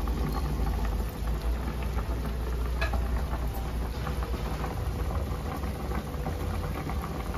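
A large aluminium pot of thick curry bubbling at a boil on a gas stove: steady popping and crackling of bursting bubbles over a low rumble, with one light click about three seconds in.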